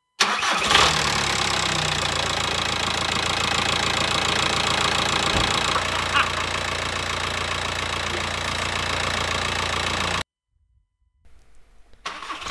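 Volkswagen 1.9 TDI four-cylinder diesel engine on its first start after being refitted, firing up and running at a steady idle. The sound stops abruptly about ten seconds in.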